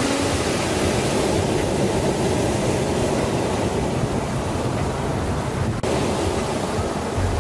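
Ocean surf: small waves breaking and washing up a sandy beach, a steady rushing wash, with a momentary break in the sound about six seconds in.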